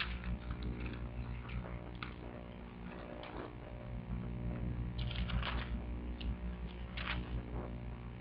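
Bible pages being turned: a scatter of soft papery rustles and light clicks, a little thicker past the middle, over a steady low hum.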